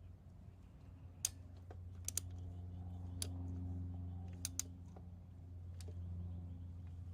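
A few sharp metallic clicks, some in pairs, from a ratcheting wrench set to reverse being worked on a Harley neutral safety switch screwed into the top of the transmission. A steady low hum runs underneath.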